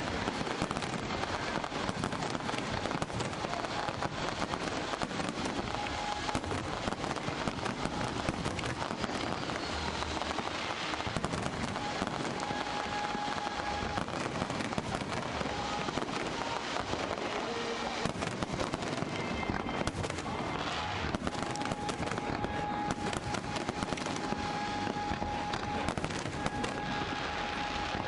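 A fireworks display going off without a break, a dense continuous crackling of many small pops. A few thin held tones come and go in the second half.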